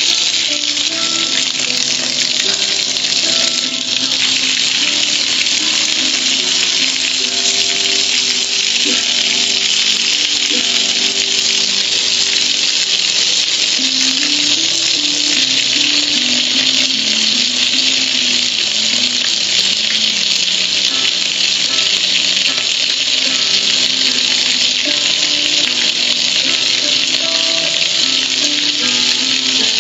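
Steady rush of water pouring and splashing over a soapy metal gas grill, with music playing underneath.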